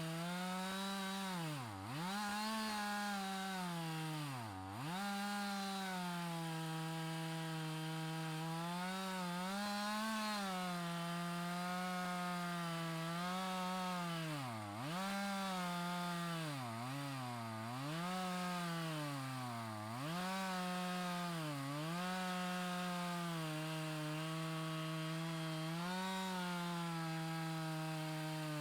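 Chainsaw with a rip chain, fitted in an Alaskan-style chainsaw mill, running at high revs as it rips a plank lengthwise from a log. Its pitch briefly sags under the cutting load about seven times and then recovers.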